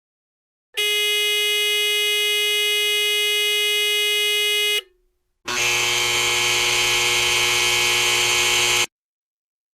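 Two buzzer sounds in turn: a steady, evenly pitched buzz of about four seconds, then after a short pause a harsher, noisier buzz of about three and a half seconds. Each starts and cuts off abruptly.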